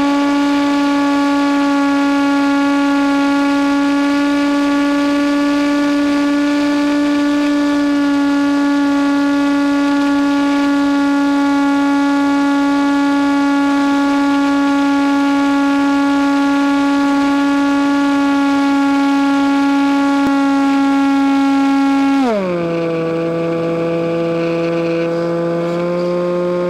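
Electric motor and propeller of a Nitroplanes Easy Hawk RC plane, heard through its onboard microphone, running with a steady whine. About 22 seconds in, the throttle is pulled back and the pitch falls quickly to a lower steady tone.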